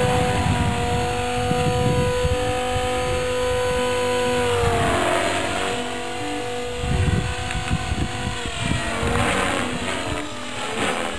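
Small B400 radio-controlled helicopter flying: a steady whine from its motor and rotors that drops in pitch about halfway through and climbs again near the end.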